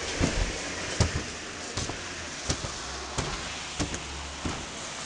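Glass revolving door turning: a steady rushing noise with short knocks about every three quarters of a second.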